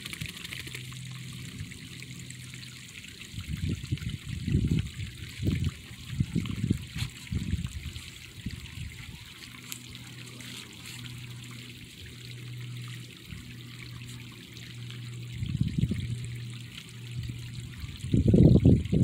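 Shallow stream of water trickling and running over mud and rocks, a steady hiss. Loud low rumbles break in several times, for a few seconds from about three and a half seconds in, again around sixteen seconds, and just before the end.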